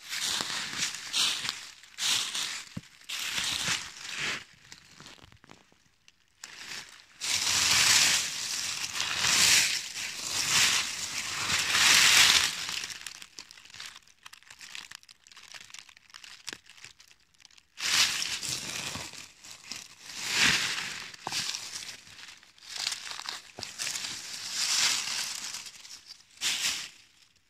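Dry fallen beech leaves crunching and rustling as they are disturbed, in irregular bursts with short quiet pauses between.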